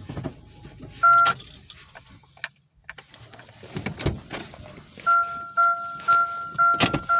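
A car's warning chime: one short beep about a second in, then the same beep repeating about twice a second from midway on, with keys jangling and a few clicks and knocks.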